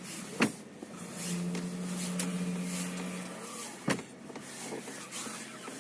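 A 2014 Nissan Qashqai J11's steering being turned with the engine running. A steady power-steering hum is heard for about two seconds, with two sharp creaks, one near the start and one just after the hum stops. The creaks come with turning the wheel in frost, which the owner puts down to the shock-absorber dust boots.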